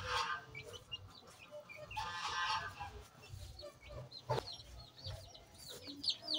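Chickens clucking, with many quick high chirps of small birds that grow busier near the end, and one sharp knock a little past the middle.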